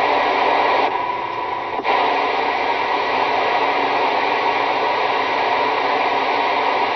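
Steady hiss of static and band noise through a CB radio receiver. The noise dips briefly about a second in and comes back with a click just before two seconds. The uploader says the band noise is rising with the coming DX cycle.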